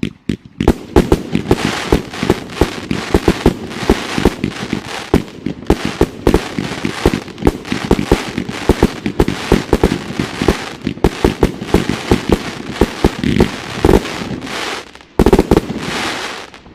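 A 49-shot firework cake firing: a rapid run of sharp launch and burst reports, several a second, over a continuous hiss. It ends with a last cluster of loud bursts near the end.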